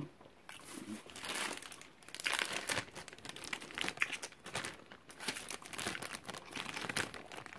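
Clear plastic zip-top bags crinkling and rustling as they are picked up and handled, in irregular bursts.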